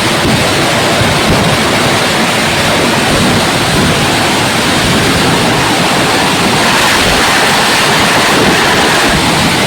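Fireworks going off as a dense, continuous crackle, like a long chain of firecrackers bursting without a break, loud and steady.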